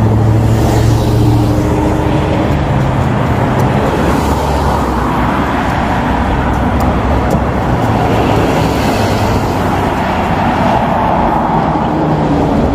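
Road traffic: cars and trucks driving past on the road, as a steady rush that swells as vehicles go by, with a low engine hum near the start.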